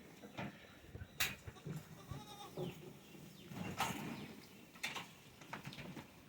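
Goats bleating faintly a couple of times, with a few sharp knocks or clicks in between.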